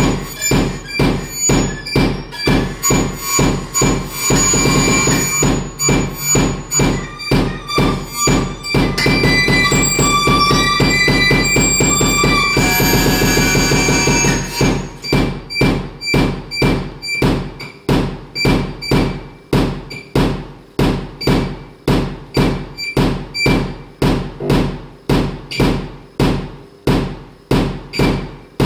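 Live electronic music: a steady pulse about twice a second, each stroke fading away, under several held high tones. Around the middle the sound thickens into a dense, evenly loud wash for a few seconds, then the pulsing returns.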